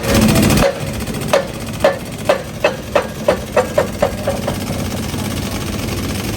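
A run of about ten sharp metallic knocks, each with a short ring, coming faster and closer together, as a Jaguar Land Rover drive shaft is forced out of its bearing bracket in a press. A loud rushing noise at the start, and a steady mechanical drone underneath.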